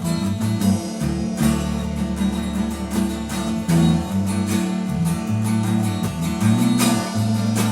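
A small band playing with no vocals: strummed guitar over a bass guitar holding low notes that change every second or so, with drum and cymbal hits throughout.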